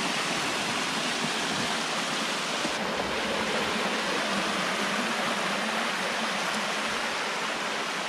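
Waterfall cascading down stepped rock ledges: a steady rush of falling, splashing water.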